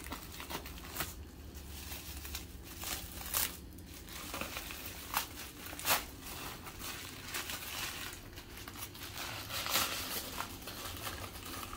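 Bubble wrap and packing paper crinkling and rustling as a wrapped stone is unwrapped by hand, with scattered sharp crackles at irregular intervals.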